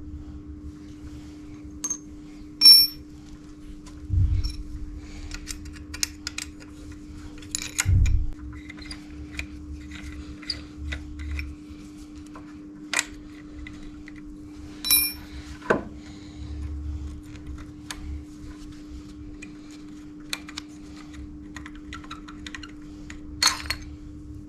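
Small metal parts and tools clinking and tapping as a motorcycle front brake caliper and its pads are handled. There are scattered light taps and a few sharp ringing metal clinks, over a steady low hum.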